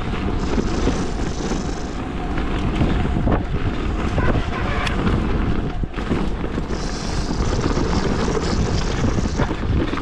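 Wind buffeting the microphone over the rumble of knobby tyres rolling down a dirt and gravel trail on a Bowhead Reach adaptive mountain bike, with occasional sharp clacks from stones and the bike.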